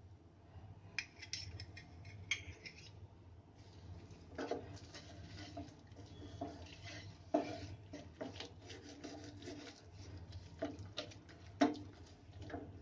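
Wooden spatula stirring and scraping thick, nearly finished mawa around a non-stick frying pan, with knocks against the pan every few seconds. A few light clinks of a steel spoon come in the first two or three seconds, and a steady low hum runs underneath.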